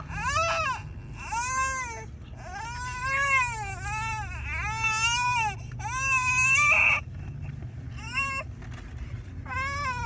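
Young infant crying: a string of wails about a second long each, every one rising and then falling in pitch, with a short lull after the loudest wail past the middle.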